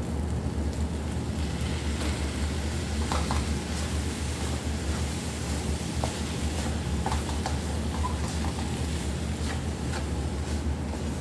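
Wooden spoon stirring and scraping a rice and minced-meat filling as it fries in a nonstick wok, with a few short clicks of the spoon against the pan. A steady low hum runs underneath.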